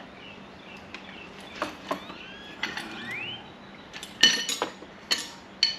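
A series of sharp metallic clinks and knocks, about seven in all and some with a short ring, the loudest a little over four seconds in, as hardware and tools are handled while a part is taken off a dinette chair.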